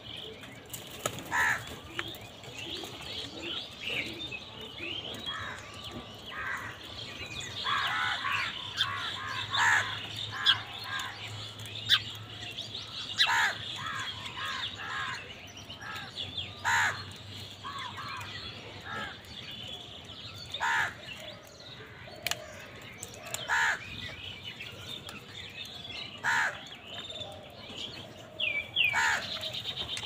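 A flock of house crows cawing: short calls, singly and in quick overlapping clusters.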